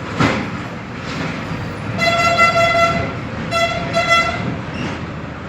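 A horn sounding two long toots, about a second each, with a short break between them.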